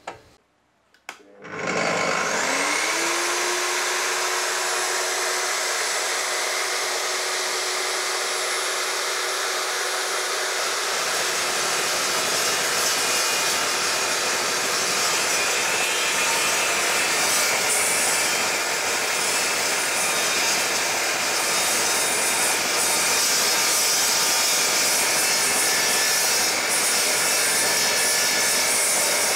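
DeWalt DW872 slow-speed metal-cutting chop saw switched on with a click, its motor rising in pitch to a steady running speed within about a second. About ten seconds in, its carbide-tipped blade starts cutting through a 15 mm steel bar, and the cutting noise goes on steadily.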